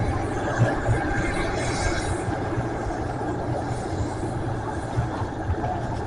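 MD 530 turbine helicopter running on the ground with its main rotor turning, ready for take-off: a steady turbine whine over the rumble and wash of the spinning rotor.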